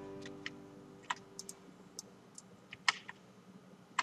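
About ten light, irregular clicks from a computer mouse and keyboard while a drawing program is worked.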